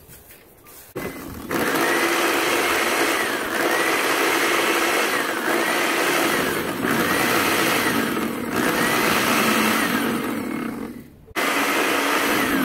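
Countertop blender with a glass jar grinding dried perilla leaves. It switches on about a second in and runs loudly with a whine that rises and falls about once a second, cuts out briefly near the end, then starts again.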